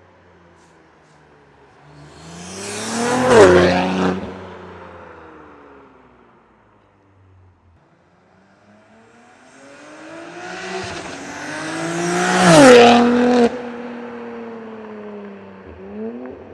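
BMW S58 twin-turbo inline-six with a titanium equal-length X-pipe catback and catless downpipe, accelerating hard twice. Each pull climbs in pitch to a loud peak and then drops sharply, the first about three seconds in and the second near the end. After the second drop the engine keeps running at a lower, steady pitch.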